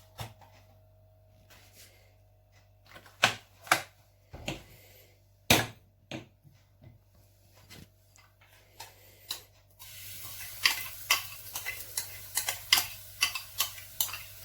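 A spatula knocking and scraping against a frying pan. From about ten seconds in, a pancake sizzles in hot sunflower oil with quick crackles and pops.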